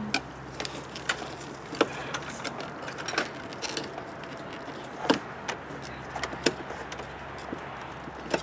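Irregular clicks and knocks as an old RV window frame is pried and worked loose from its wall opening, the loudest a little past five seconds in.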